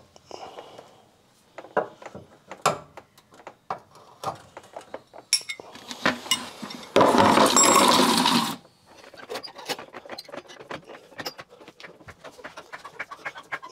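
Metal tool clinks and clicks under a car while the fuel tank is being drained into a plastic bucket. About seven seconds in comes a loud rushing noise lasting about a second and a half, followed by rapid, irregular light ticking.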